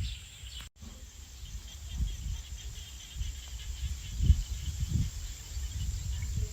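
Insects, crickets or cicadas, chirping in a fast steady pulse over an uneven low rumble of wind on the microphone. The audio cuts out briefly under a second in.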